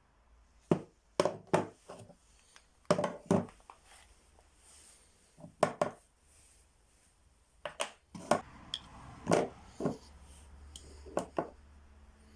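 Hard clicks and knocks, often in quick pairs, of drill parts and tools being handled and set down on a workbench. A faint low hum comes in near the end.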